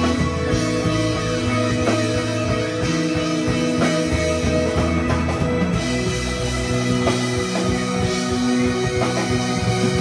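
Live band playing an instrumental passage: a prominent electric bass line with electric guitar, keyboards and drum kit.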